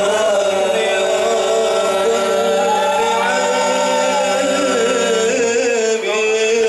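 Male a cappella vocal group singing an Islamic devotional song (sholawat) in harmony. Several voices hold long steady chord notes while a higher voice line rises and falls above them.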